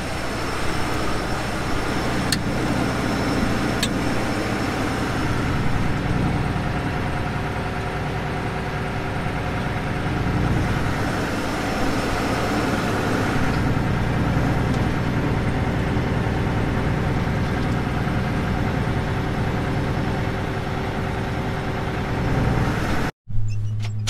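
Combine harvester running with its separator and cleaning fan engaged, a steady mechanical drone with a low hum, blowing snow and ice chunks out of the cleaning area through the fully closed sieves. Two brief clicks about two and four seconds in.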